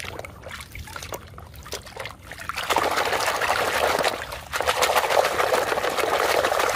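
Muddy water sloshing and splashing in a bucket as a hand scrubs a toy truck in it. Light splashes at first, then vigorous churning begins about two and a half seconds in, with a short break partway through. The churning stops abruptly near the end.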